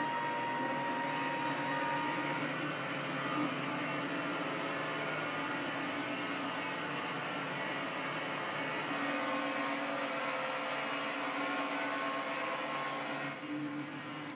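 Small metal lathe running while turning a brass bar: a steady motor and gear whine with several held tones over a hiss. A thin whistle drops out about two seconds in.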